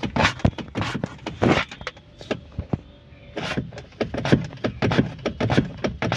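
Irregular knocks and clunks of a Fiat Punto's clutch pedal being pressed repeatedly by foot, the pedal firm again now that the hydraulic clutch has been bled of air.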